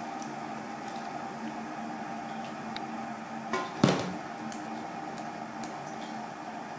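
A steady hum runs throughout. Just before four seconds in, a monkey's hand reaching into an aluminium rice-cooker pot makes one sharp knock with a short metallic ring, and a few faint light clicks come from its handling of the rice.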